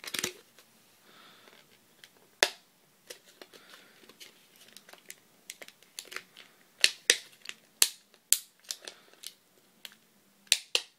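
Stiff plastic clamshell packaging crinkling and clicking as a RAM stick is worked out of it, with scattered sharp snaps, a handful of them loud.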